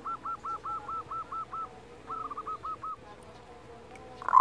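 Local zebra dove (perkutut) giving its kerot call: a quick series of short, clipped notes at about five a second, then after a brief pause a shorter run of four. A much louder call starts right at the end.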